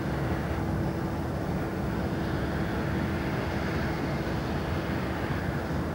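Steady industrial drone from the Deeside Aluminium factory, a constant hum over an even rumbling noise with no breaks. It is the noise nuisance the residents complain of, reading 60 to 62 decibels on a sound level meter.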